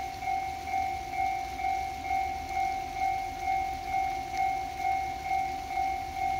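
Japanese railway warning bell, the electronic crossing-alarm kind, ringing steadily with a single clanging tone repeated about twice a second. It signals a train approaching or passing.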